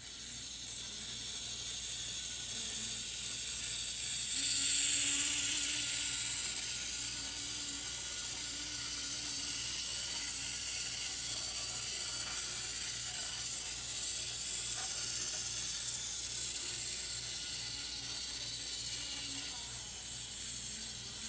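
Tiny electric motor and gears of a Tomytec Moving Bus System N-scale model bus whirring steadily as it drives around the road loop, high-pitched, swelling briefly about five seconds in.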